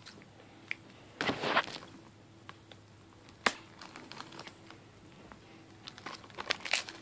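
Plastic wrapping on a new Blu-ray case crinkling and tearing as it is picked open by hand. There is a short rustle about a second in, a sharp click about halfway through, and scattered small crackles near the end.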